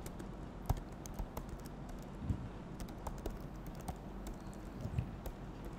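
Typing on a computer keyboard: irregular, quick key clicks, over a low steady hum.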